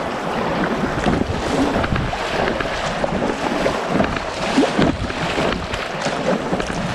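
Water rushing and splashing through a small river rapid as an inflatable kayak runs it, a steady noisy wash with small gurgles throughout.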